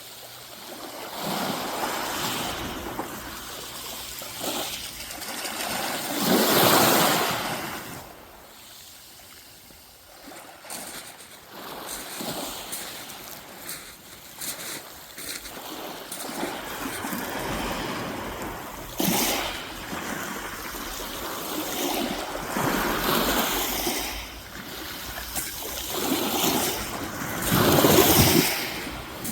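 Sea waves breaking and washing up the shore, swelling and ebbing, loudest about six seconds in and again near the end.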